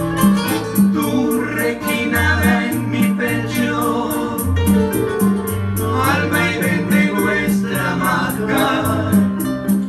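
Live Latin American trio music: two acoustic guitars strumming and picking over a Yamaha keyboard that plays sustained chords, a steady bass line and a shaker-like rhythm of about four ticks a second.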